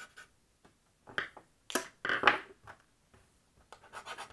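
Sharp clicks and knocks of a laptop's magnesium-alloy chassis frame being handled, the loudest a little past two seconds in. Near the end a tool starts scratching the bare magnesium in a quick, even scraping of about eight strokes a second.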